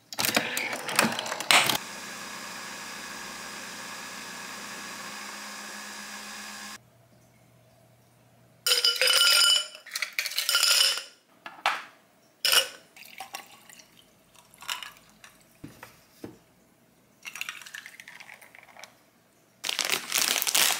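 Kitchen clatter: dishes and utensils clinking and knocking. A steady hum from a small appliance runs for about five seconds before cutting off suddenly.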